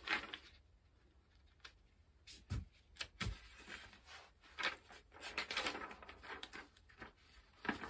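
Sheets of paper rustling and crinkling as they are handled, with two knocks about three seconds in.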